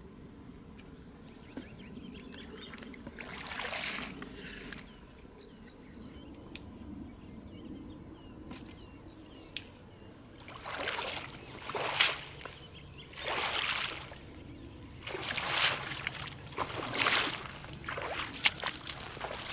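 Wading through shallow flooded marsh water in rubber boots: water sloshing and splashing, with slow splashing steps about a second apart through the second half. A small bird gives short high chirps twice midway.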